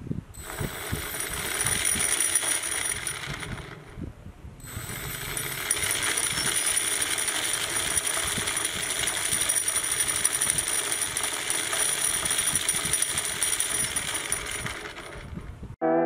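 Small brushless outrunner motor driving a homemade gear reduction, running with a steady high whine over a fast gear rattle. It spins up over the first couple of seconds, stops briefly about four seconds in, then runs again and winds down just before the end.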